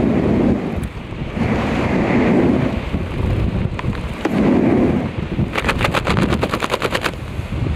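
Heavy wind buffeting the microphone in the air during a skydive, rising and falling in gusts. Near the end comes about two seconds of rapid, sharp flapping snaps, roughly ten a second.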